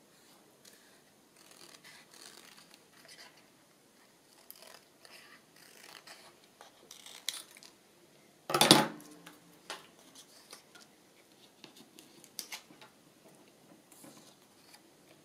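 Paper and craft materials being handled on a desk: light rustles and small clicks, with one sharp, much louder knock a little past halfway.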